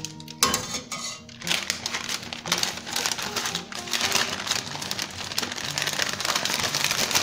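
Paper-like mixiote wrapping sheet crinkling and rustling as hands fold and roll it, with background music underneath.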